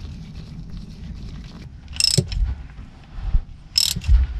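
Ratchet wrench with a 14 mm hex-bit socket clicking in two short runs, about two seconds in and again near the end, as the differential drain plug is driven back in.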